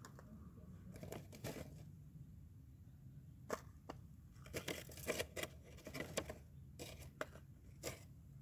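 A bent-wire grabber arm and a paper mini garbage bin handled by hand: scattered light clicks and papery crinkles as the bin is gripped and lifted, busiest around the middle.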